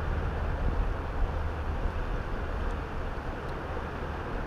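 Steady rush of a flowing stream, with wind buffeting the microphone in a low rumble.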